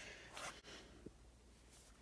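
Near silence: room tone with a faint low hum, and a brief soft rustle about half a second in.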